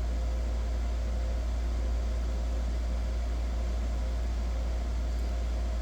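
Steady low hum with a few faint steady higher tones over an even background hiss, unchanging throughout, with no separate events.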